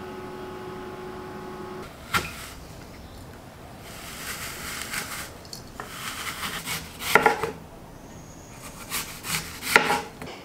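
Microwave oven running with a steady hum, which stops about two seconds in, followed by a sharp click. Then an apple corer is pushed and twisted through a crisp apple with crunching and scraping, and a knife cuts the apple into rings on a wooden chopping board with a few loud crisp crunches near the end.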